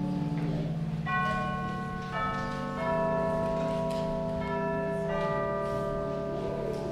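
Church organ playing slow, sustained chords, with a held low part and higher notes that change every second or so.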